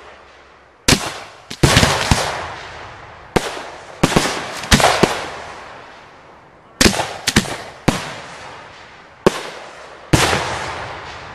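Aerial firework shells going off in a display: about a dozen sharp bangs in quick clusters, each trailing off in a long echoing rumble.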